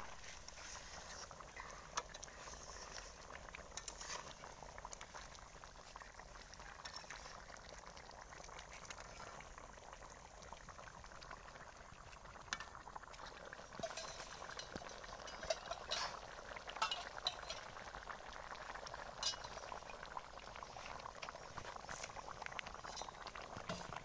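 Rohu fish curry gravy bubbling at a brisk boil in a pot over a clay stove: a dense crackle of popping bubbles that grows busier about halfway through, with sharper pops now and then.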